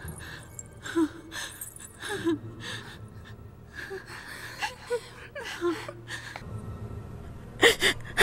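A person gasping and sobbing with emotion: short breathy whimpers come every second or so over a faint low hum, and turn louder near the end.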